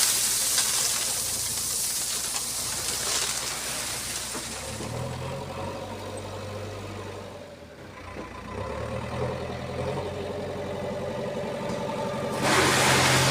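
Diesel engine of a backhoe loader running, easing off about two-thirds of the way through and then picking up again. A broad rushing hiss sounds over it at the start and again near the end.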